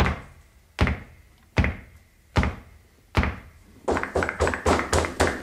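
Intro soundtrack of heavy drum-like thuds: five slow hits, evenly spaced and each dying away, then a quickening run of hits near the end, building into theme music.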